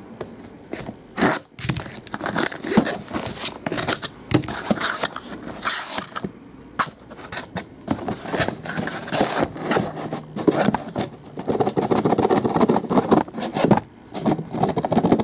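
Scissors cutting the packing tape on a cardboard case, then cardboard scraping and sliding as the case is pulled open and the sealed card boxes inside are handled and stacked, with frequent clicks and knocks.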